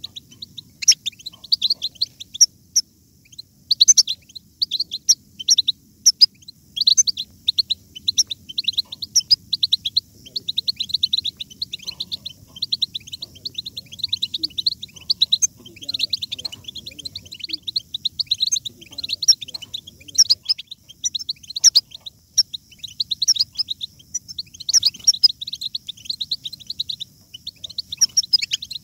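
European goldfinch song: a fast, continuous twittering run of short high notes with only brief breaks. It is the chattering 'bitbita' song used to stimulate caged goldfinches to sing.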